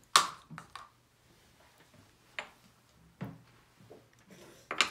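An empty paper cup set down sharply on a stone tabletop with a single loud click, followed by a few faint, scattered taps and knocks on the table.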